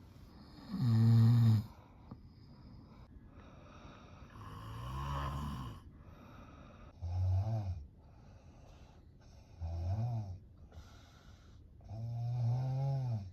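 A sleeping person snoring heavily: five low, rasping snores, each about a second long and roughly every two and a half to three seconds, the first the loudest. The uploader links this snoring to sleep apnea.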